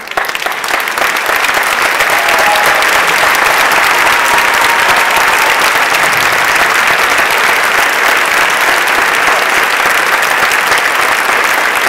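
Large audience applauding loudly and steadily, swelling up in the first second.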